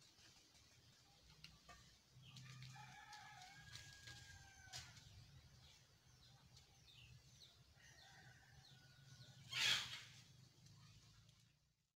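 Faint rooster crowing, one drawn-out crow a couple of seconds in and a fainter one later. Near the end, a brief loud rustle of fur brushing over the microphone.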